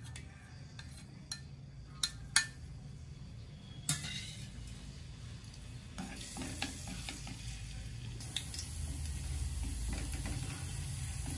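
Minced garlic sizzling in hot oil in a wok, stirred with wooden chopsticks. Three sharp knocks of the utensils against the wok in the first four seconds, then the sizzle builds and grows louder as the garlic fries.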